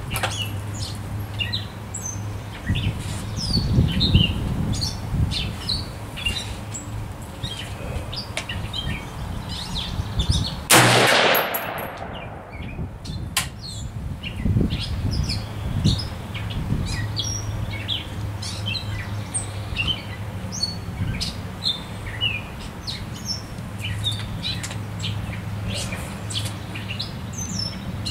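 A single rifle shot from an AR-15 firing 55-grain FMJ .223, about eleven seconds in, its report trailing off in a short echo. Small birds chirp throughout, and a light breeze rumbles on the microphone.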